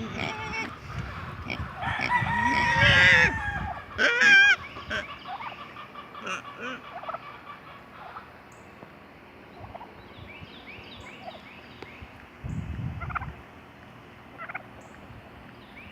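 Backyard poultry calling: chickens and a hen turkey. A loud run of wavering calls comes in the first four seconds or so, then quieter short calls now and then.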